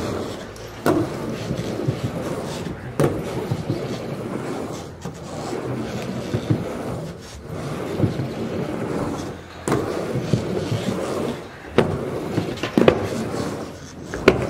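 Skateboard wheels rolling over a mini ramp, with several sharp clacks of boards hitting the ramp surface.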